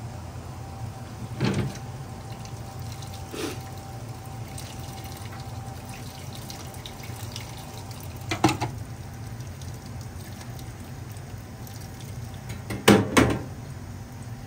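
Hot water poured from a small pan over skin-on fish fillets to scald the skin, splashing off the cutting board into a steel sink over a steady low hum. A few sharp knocks come through, the loudest a double knock near the end.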